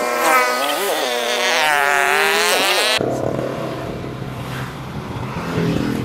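Motor scooter engine running under way, its whine rising and falling with the throttle. About three seconds in the whine cuts off and gives way to a lower rumble with wind and road noise as the scooter slows.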